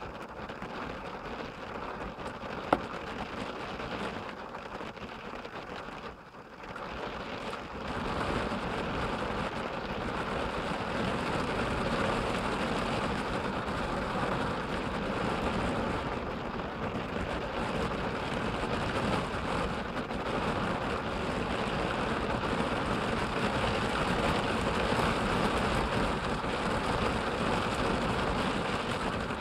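Thunderstorm rain falling on a vehicle's roof and windshield, heard from inside the cabin. It eases for a moment about six seconds in, then comes down louder and stays steady. There is one sharp click about three seconds in.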